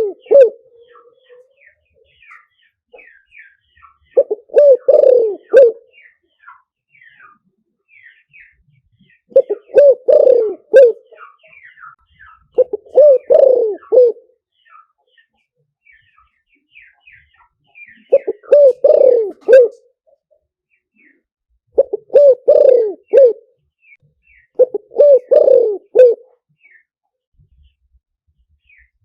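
Spotted dove cooing: about seven phrases of three or four low coo notes, each phrase lasting about a second and a half, repeated every few seconds. Small birds chirp faintly and high between the phrases.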